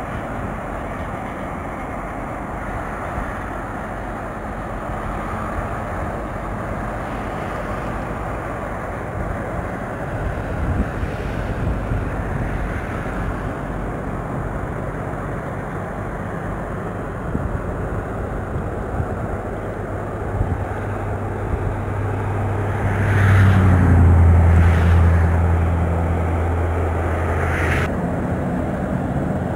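Steady outdoor rumble of distant road traffic. Near the end a vehicle engine drones louder for a few seconds, then stops suddenly.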